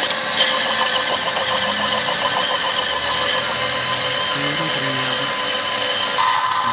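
Electric blender motor running at speed, its blades churning soaked crushed red chillies in vinegar into a wet paste inside a glass jar. A steady whine over the churning, with one tone growing stronger near the end.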